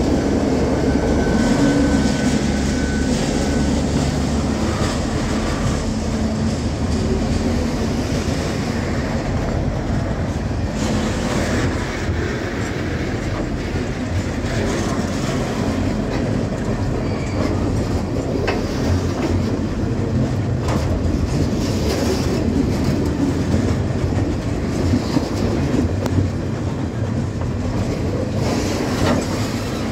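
A diesel-hauled freight train passing close by. The locomotives' engines hum for the first few seconds, then flat wagons loaded with steel coils roll steadily past, their wheels clacking over the rail joints.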